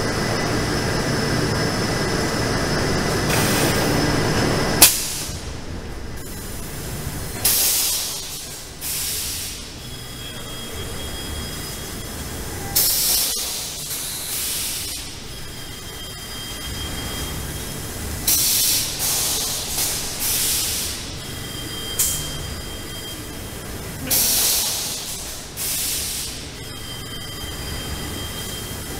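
Yarn-bobbin bagging machinery running in a mill. A loud, dense machine noise cuts off with a sharp click about five seconds in. After that a lower hum is broken every one to three seconds by short hissing blasts of compressed air from the machines' pneumatic valves.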